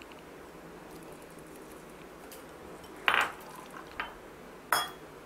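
A few short clinks of bowls against a stainless-steel mixer-grinder jar as papaya pieces are tipped in and milk poured over them. The loudest comes about three seconds in, a faint one follows, and a last one near the end rings briefly.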